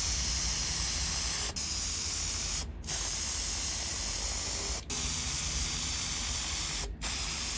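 Aerosol spray-paint can spraying in a steady hiss, with four short breaks as the nozzle is let off between passes.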